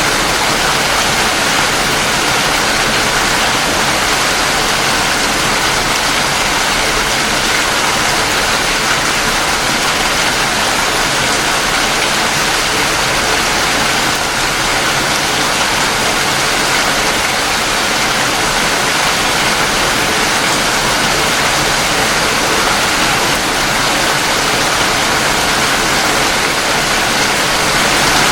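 Steady rain falling, an even unbroken hiss with no thunder or separate drops standing out.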